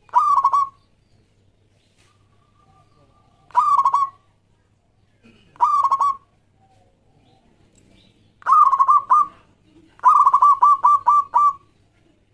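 Zebra dove (perkutut) cooing in five phrases a few seconds apart, each a quick run of stuttering coos. The last phrase is the longest, a string of about seven rapid notes.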